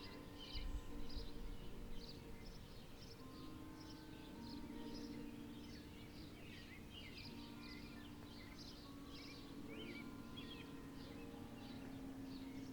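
Birds chirping continuously in rapid short calls, over a faint steady low hum. A brief low rumble about a second in, like wind buffeting the microphone.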